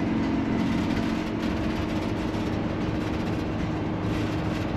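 Steady road and drivetrain noise inside the cab of a Tiffin motorhome driving at highway speed, with a low hum that fades in the first second.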